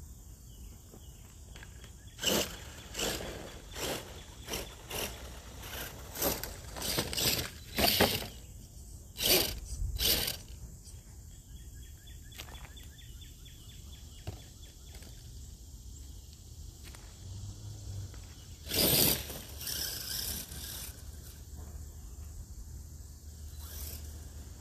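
Modded Gen7 Pro radio-controlled mud truck working over dirt and rocks: a quick run of short scraping, crunching bursts, a faint rising electric-motor whine around the middle, then two more scrapes near the end.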